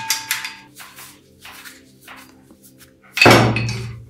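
Old metal parts handled on a wooden workbench: a few light clinks and taps, then one heavier metal knock with a short ring about three seconds in.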